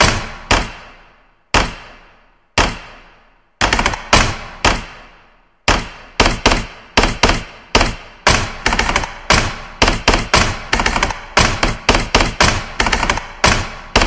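Tap-dance taps, sharp metallic strikes each trailing a long echo. A handful of single taps spaced about a second apart give way, about six seconds in, to a fast, continuous run of taps.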